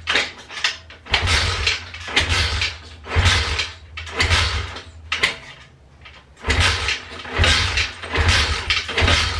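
Turbocharged Loncin pit bike engine being kicked over about once a second, with a short gap near the middle. Each kick turns the engine over briefly, a short rush of noise over a low rumble, without it firing: the owner puts the failure to start down to fuel not having come through.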